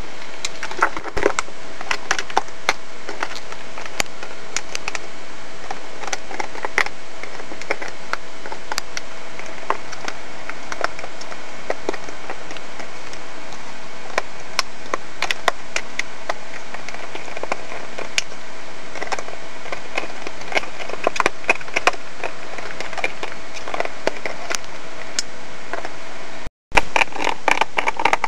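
Dog chewing on a plastic drink bottle: irregular crackling and clicking of the plastic over a steady hiss. The sound cuts out briefly near the end, then a denser run of clicks follows.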